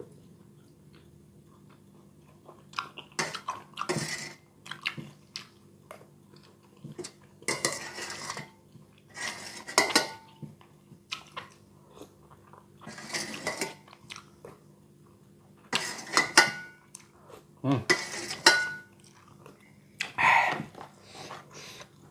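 Spoon and fork clinking and scraping against a bowl in short bursts every two to three seconds, some clinks ringing briefly, as the last of a bowl of bakso is eaten.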